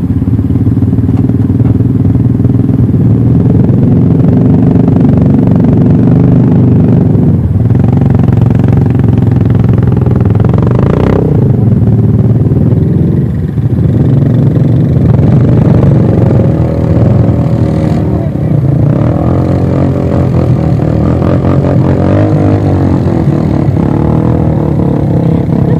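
ATV engine running loudly and steadily, its pitch shifting a little with the throttle, with a brief drop about halfway through.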